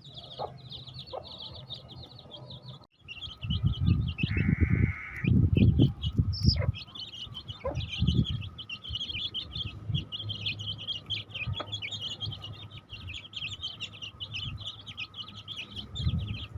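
A brood of baby chicks peeping continuously in a dense, rapid, high-pitched chorus, cut off briefly about three seconds in. Louder low rumbling thumps come and go over it, the loudest between about four and six seconds.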